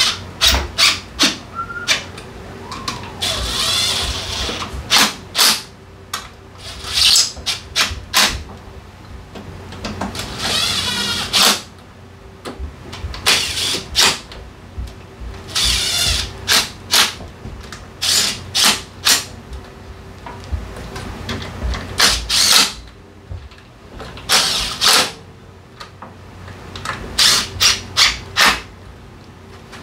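Metal tools and drivetrain parts clinking and knocking during work on a scooter's belt drive, with a few short whirring runs of a power tool of about a second each.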